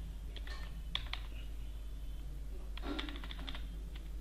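Computer keyboard keystrokes clicking in short bursts as text is deleted in a code editor: a few presses about a second in and a quicker flurry around three seconds in, over a steady low hum.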